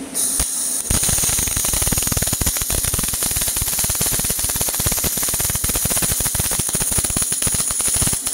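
MIG/MAG welding arc crackling steadily as a carriage-mounted torch lays a bead on thin steel plate at about 120 A and 21.7 V. The dense crackle starts just under a second in and cuts off abruptly near the end when the arc stops.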